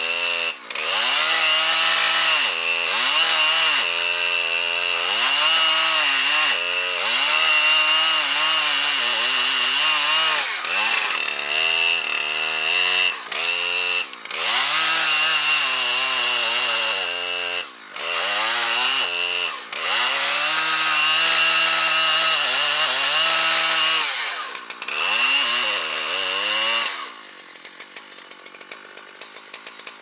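Husqvarna two-stroke chainsaw at full throttle cutting into a large poplar trunk, its engine note dipping and climbing again many times. About 27 seconds in it drops abruptly to a low idle.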